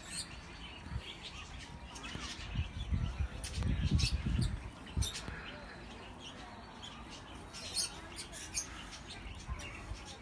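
Small aviary birds chirping and squawking in short, scattered calls. A low rumbling noise rises for a couple of seconds near the middle.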